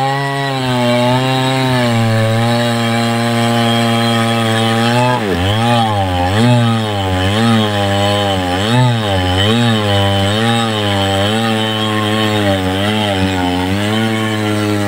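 Two-stroke chainsaw running at high throttle while cutting a large trembesi (rain tree) trunk. About five seconds in, its engine speed starts dipping and recovering repeatedly, about one and a half times a second, as the chain bogs under load in the cut; it evens out again near the end.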